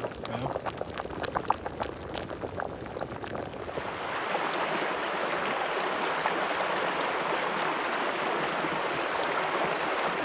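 Food cooking in hot oil in a pan: crackling and spitting at first, then from about four seconds in a steady, louder sizzle.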